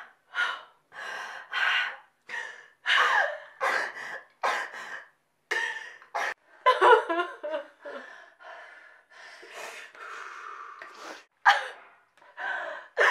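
A woman sobbing hard: a long run of short, gasping breaths, with wavering wails breaking through now and then.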